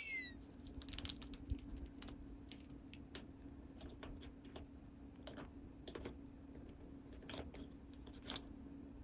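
Light, irregular clicks and taps of small plastic toy playset pieces being handled and set in place, over a faint steady hum.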